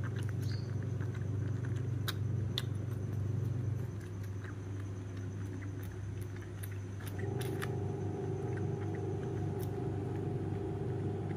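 A steady low mechanical hum, shifting about four seconds in and taking on higher steady tones about seven seconds in. Over it come small scattered clicks from a baby monkey sucking milk from a feeding bottle.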